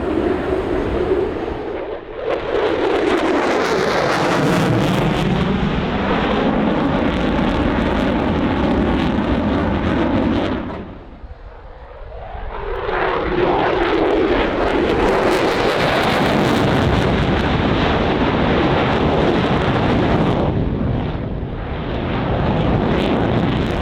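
Lockheed Martin F-22 Raptor's twin Pratt & Whitney F119 turbofans running at high power as the jet flies by, with a sweeping, whooshing rise and fall in tone. The noise drops away briefly about eleven seconds in, then builds again into a second loud stretch.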